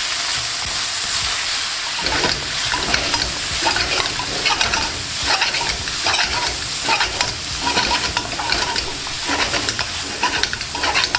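Vegetables (carrots, onions, peppers, cabbage) sizzling in hot oil in a wok while being stir fried. From about two seconds in, a utensil scrapes and tosses them against the pan in repeated strokes over a steady sizzle.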